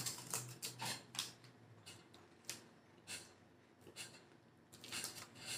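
Crispy lemon wafer bars being bitten and chewed: faint, irregular crunches, thick in the first second and a half, a few scattered ones after, and a short cluster near the end.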